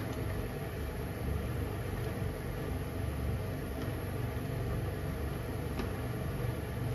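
A ladle stirring simmering chikuwa-and-vegetable broth in a frying pan, with a few light clicks of the ladle against the pan, over a steady low rumble.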